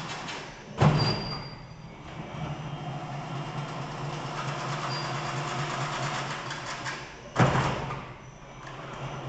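Chain-link wire mesh weaving machine running with a steady mechanical hum, broken twice by a sudden loud knock, about a second in and again near the end.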